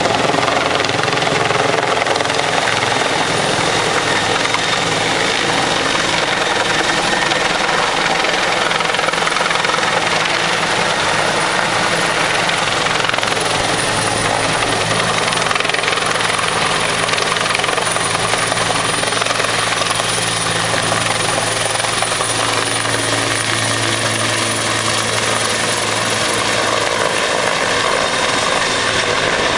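Bell 412 air ambulance helicopter lifting off low overhead, its twin turboshaft engines and rotor running loud and steady, with a high thin turbine whine through the middle; it climbs away near the end.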